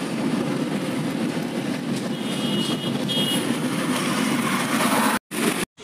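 Steady road noise of a car driving at speed on a concrete highway, heard from inside the cabin: an even low rumble with tyre hiss. The sound cuts out twice, briefly, near the end.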